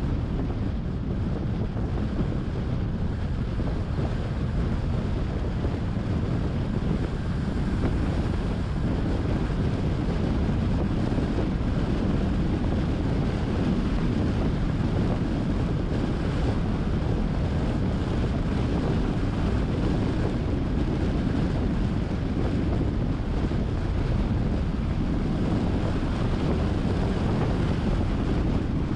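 Steady wind rush on the microphone of a moving car, mixed with road and tyre noise, deepest in the low end and without let-up.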